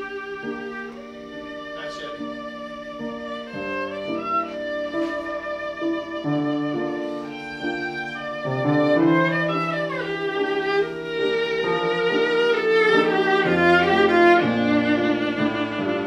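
Viola played with vibrato over a piano accompaniment, a lyrical phrase that grows louder toward the middle and end.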